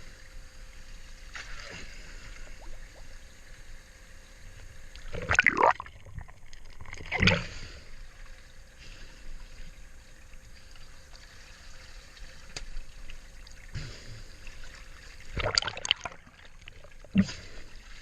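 Water trickling and splashing at a boat's side, broken by four brief loud knocks or splashes: a pair about five and seven seconds in, and another pair near the end.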